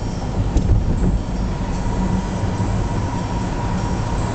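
Car cabin noise while driving: a steady low engine and road rumble with a faint steady whine above it.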